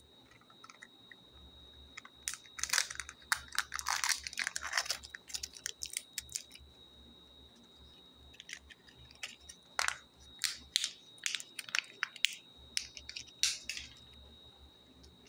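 Thin plastic packaging crinkling and tearing in the hands as a Kinder Joy egg and its toy's small plastic bag are opened: two spells of dense crackling, one starting about two seconds in and another about eight seconds in.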